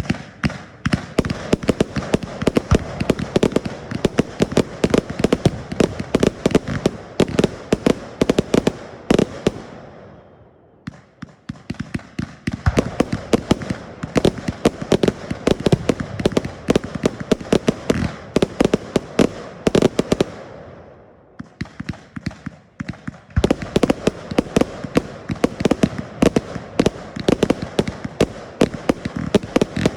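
Fireworks display firing: a dense run of rapid bangs and crackles, several a second, easing off briefly about ten seconds in and again about twenty-one seconds in before picking up again.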